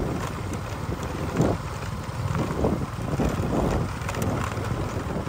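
Wind buffeting the microphone: a steady low rumble, with faint short knocks now and then.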